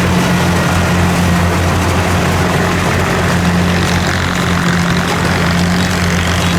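Kubota DC-70 rice combine harvester running steadily, its diesel engine giving a constant low drone with a noisy rush from the machine over it.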